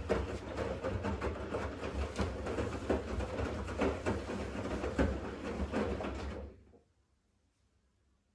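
Siemens front-loading washing machine in its wash phase: the drum turns with a low motor hum while the wet laundry tumbles and water sloshes, then the drum stops about six and a half seconds in, a pause in the intensive wash rhythm.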